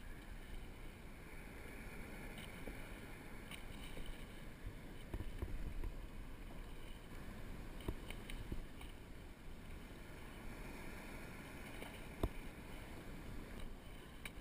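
Water lapping and sloshing against a plastic kayak hull as a steady hiss, with a few sharp knocks, the loudest near the end.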